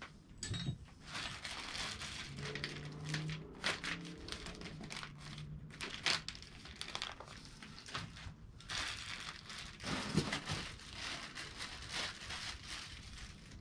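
Plastic packaging bags crinkling and rustling as wrapped parts are handled and pulled from a styrofoam packing insert, with sharp crackles throughout. A low hum sounds for a few seconds partway through.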